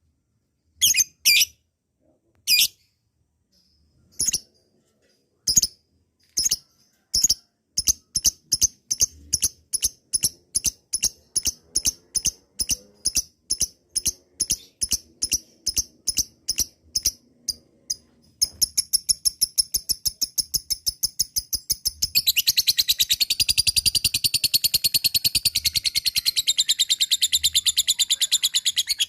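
Lovebird's 'ngekek' call, the long chattering song. Sparse sharp chirps quicken into a rapid run of repeated notes, and about eighteen seconds in they become a fast continuous chatter that grows denser and louder near the end. It is a long ngekek of the kind played as a lure to provoke other lovebirds into calling.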